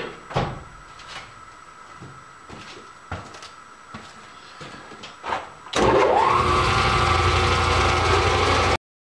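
A few scattered clicks and knocks, then a metal lathe's electric motor switches on: its whine rises quickly and settles into a steady run. The sound cuts off abruptly near the end.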